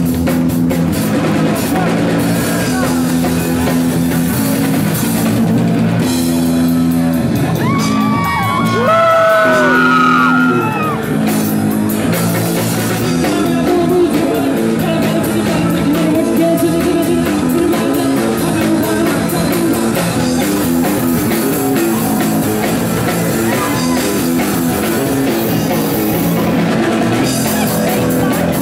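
Live punk rock band playing at full volume: electric guitars, bass and drum kit, with singing over them. A short run of gliding, bending high notes comes about eight to ten seconds in.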